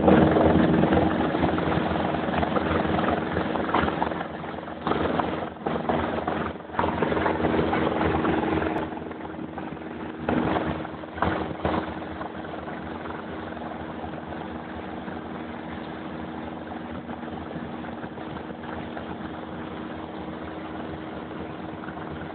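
An engine running steadily with a constant low hum, louder for the first nine seconds or so and then settling to a lower, even level.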